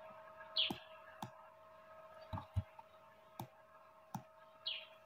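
Computer mouse clicking about seven times at irregular intervals, over a faint steady electrical hum.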